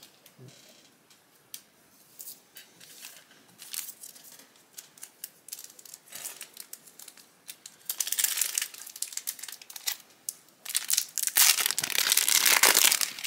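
Foil booster-pack wrapper handled and torn open: scattered small crinkles and clicks at first, then dense crinkling and tearing of the foil from about eight seconds in, loudest in the last two and a half seconds.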